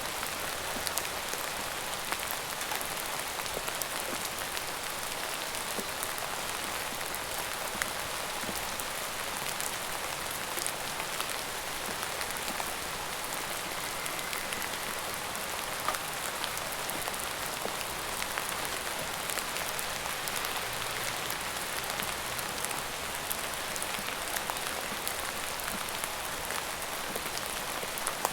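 Steady rain falling on a surface, an even hiss with many scattered small drop ticks.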